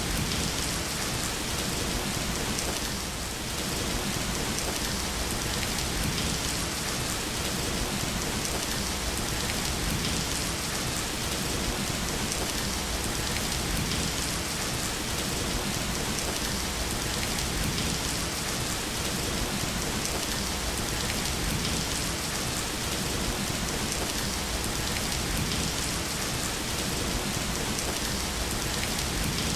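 Steady rain falling on a hard surface, an even dense hiss with no thunder claps or other sounds standing out.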